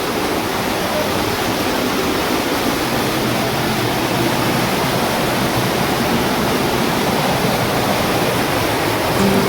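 A waterfall's water falling steadily, a constant even rush with no breaks.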